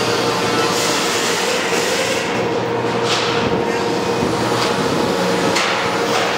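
Heavy construction machinery running with a steady drone and a held hum, with a few sharp knocks scattered through it.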